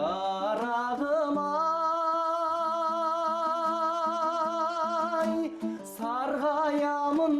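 Kazakh folk song: a singer holds one long, wavering note, then sings a quick run of notes near the end, over a plucked-string accompaniment.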